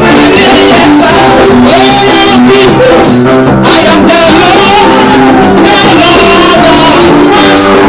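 Loud gospel praise-and-worship music: voices singing over a band with guitar and held chord notes, played without a break.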